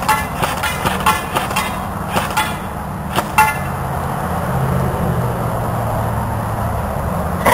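Sig 552 Commando airsoft electric gun (JG/Cybergun) firing a quick uneven string of shots, about a dozen sharp cracks, several a second, as BBs ping off a steel target. After about three and a half seconds the shooting stops and only a steady low rumble remains.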